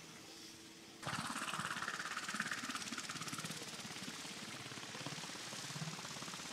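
Black Hawk helicopter's rotor and turbines running: a steady hum at first, then much louder and closer from about a second in, with a fast, even rotor chop.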